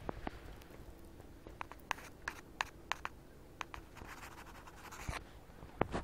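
Wood fire crackling inside a small prototype backpacking wood-burning cook stove: scattered, irregular sharp pops and snaps.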